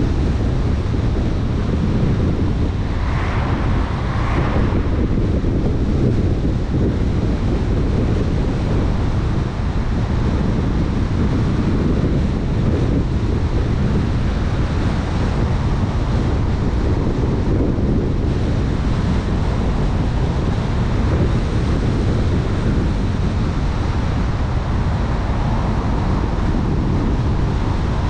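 Steady low rumble of wind buffeting the microphone, with a brief brighter rush about three to four seconds in.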